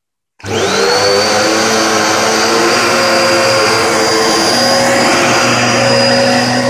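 Hoover Hurricane HU71HU02001 upright vacuum cleaner switched on about half a second in: the motor spins up with a quickly rising whine, then runs steadily.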